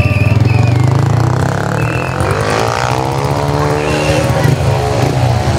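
A motor vehicle engine running with a pulsing low rumble, passing by, its pitch rising and then falling about halfway through.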